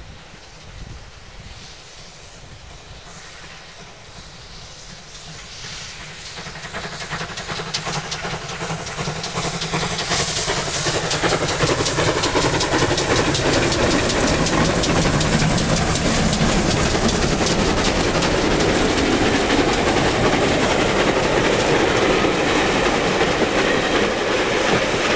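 Two steam locomotives, a GWR 57XX pannier tank and an LMS 3F 0-6-0 tank, double-heading a passenger train as it approaches and passes, with rapid exhaust beats and wheels on the rails. Faint at first, it grows louder from about six seconds in and stays loud.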